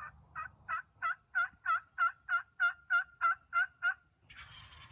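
A run of about a dozen turkey yelps, evenly spaced at about three a second and growing louder over the first few notes. A brief rustle follows near the end.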